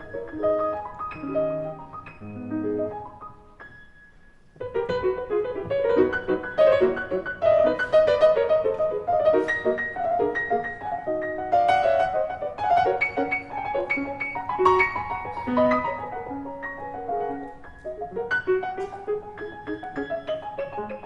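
Background music led by piano, with many short melodic notes; it thins to a brief lull about four seconds in, then picks up again.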